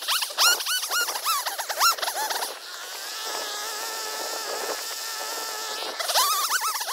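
Poulan Pro PR5020 50cc two-stroke chainsaw limbing a felled tree: quick repeated throttle blips at first, held at a steady high speed through a cut for about three seconds in the middle, then blipped again near the end.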